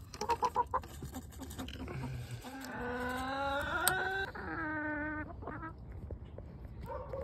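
Chickens clucking: a few short clucks at the start, a long drawn-out call about halfway through, then a shorter call falling in pitch.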